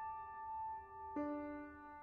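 Soft background piano music: a held note fading away, and a new chord struck a little over a second in.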